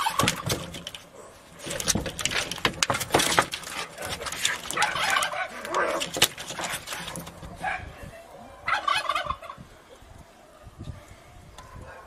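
Two cats fighting: yowling and screeching in bursts, with scuffling and scraping as they grapple on a corrugated roof sheet. It goes quieter for the last two to three seconds.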